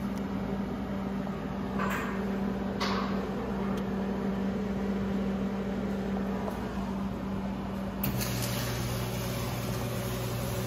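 Steady machine hum with a constant low tone that drops to a lower pitch about eight seconds in, when a high hiss also comes up; two short hisses sound about two and three seconds in.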